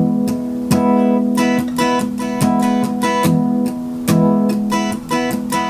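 Steel-string acoustic guitar strummed in a steady rhythm, about three strokes a second, the chords ringing on between strokes.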